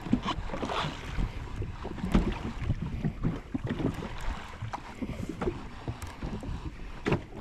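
Wind buffeting the microphone in uneven gusts, over sea water lapping and slapping against the hull of a jet ski drifting offshore; no engine running.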